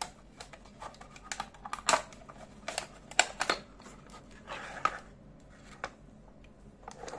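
Sharp plastic clicks and taps as the clear lid of a step drill bit case is handled and fitted onto the case, with the bits in the tray being knocked. About a dozen irregular knocks, the loudest about two and three seconds in.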